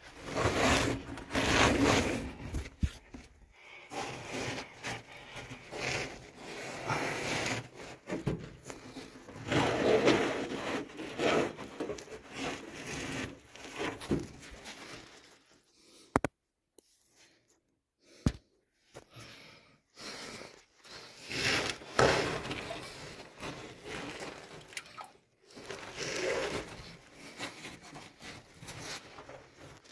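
Clothing and gear scraping and rustling against cave rock as a caver crawls and squeezes through a tight passage, in irregular bursts, with a couple of seconds of near silence about halfway through.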